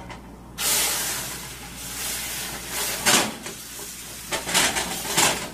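Liquid poured from a steel pot into a hot cast iron skillet, sizzling as it hits the metal and boils up. The sizzle starts suddenly about half a second in and keeps going with swells.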